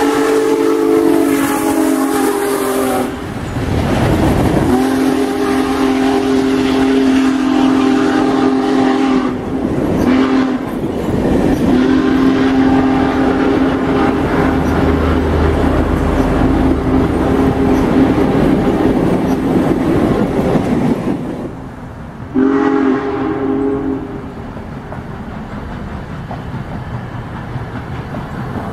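Union Pacific Big Boy 4014 steam locomotive sounding its whistle as it passes at speed: one blast ending about three seconds in, two long blasts, then a short one near the end. Under the whistle is the rumble and clatter of the locomotive and its passenger cars on the rails, which drops away after the last blast.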